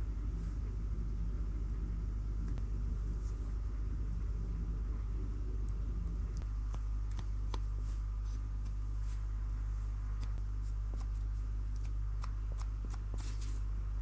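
An electric workshop machine running steadily with a low hum, with scattered light ticks and scrapes of metal being worked and a short hiss near the end.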